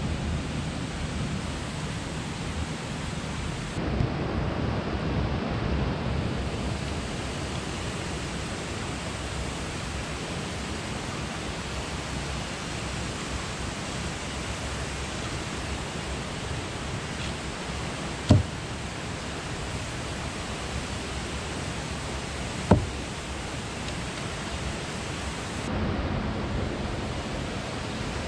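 Steady rushing of a jungle river flowing nearby, with two sharp cracks a little past the middle, about four seconds apart.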